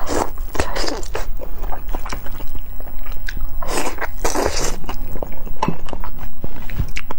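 A person slurping hot dry noodles close to a clip-on microphone: two long slurps, one at the start and one about four seconds in, with wet chewing and smacking between and after.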